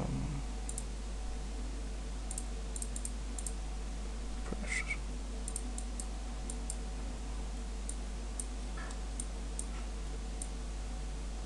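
Scattered sharp clicks of a computer mouse, irregular and a second or so apart, over a steady low electrical hum.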